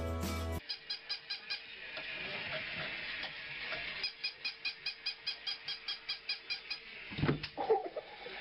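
A chick peeping in rapid, even pips of about four to five a second, in two runs with a pause between. Near the end come two louder, lower sounds.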